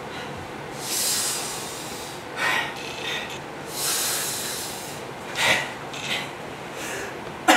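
Breathy hisses and forced exhales made with a performer's mouth and nose, in separate bursts every second or so, over a steady background hiss. A sudden loud sound comes right at the end.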